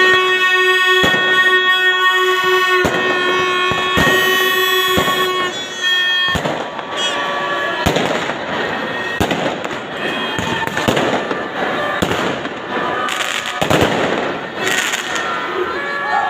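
Firecrackers and fireworks going off in a crowd: sharp bangs at irregular intervals throughout. A held horn note sounds over the first five seconds or so, and crowd voices and cheering fill the rest.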